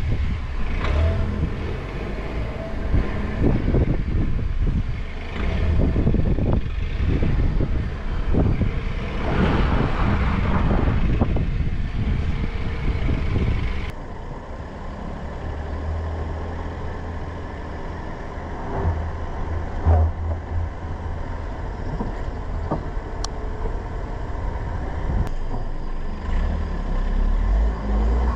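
Dacia Duster driving slowly on a dirt track: close to the front wheel, the tyres crunch and crackle over earth and loose stones above a low rumble. About halfway through, the sound turns into a steadier low rumble of the car running.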